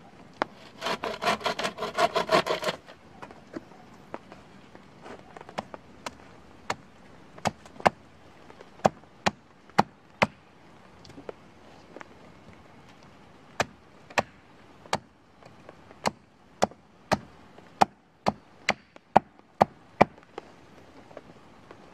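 Folding saw cutting through a branch in quick back-and-forth strokes for a couple of seconds. Then a small hatchet chops a stick against a wooden stump in a long series of sharp single strikes, about one or two a second.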